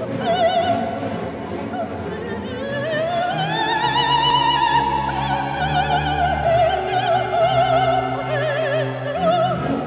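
Operatic soprano singing with a wide vibrato over an orchestra. About three seconds in she glides up to a long held high note, then carries on lower with the vibrato, over low sustained string notes.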